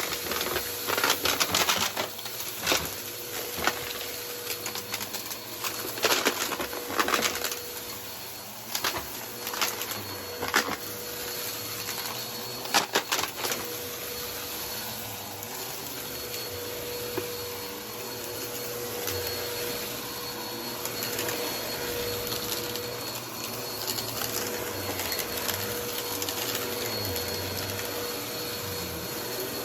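Vacuum cleaner running over carpet with a steady whine, picking up dirt: sharp clicks and crackles of grit rattling up through the first half, then a smoother, even run.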